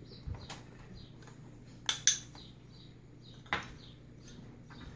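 Metal spoon clinking and scraping against a small glass bowl while marinade is spooned out. There are a few separate clinks, the loudest a pair about two seconds in and another about three and a half seconds in.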